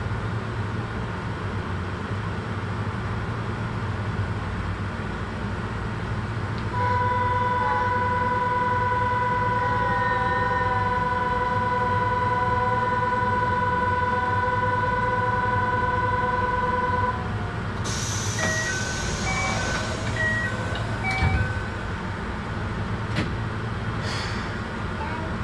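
Keihan Ishiyama-Sakamoto Line train heard from the cab, with a steady low hum throughout. About seven seconds in, a steady electronic tone starts and holds for about ten seconds. Then comes a burst of hiss and a few seconds of short alternating beeps.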